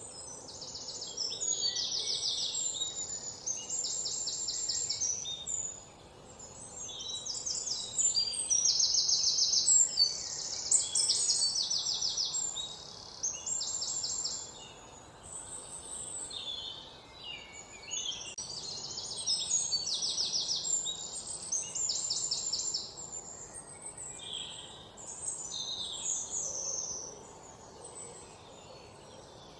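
Birds singing: high, fast trills of about a second each, one after another, with a faint outdoor background hiss; the singing thins out near the end.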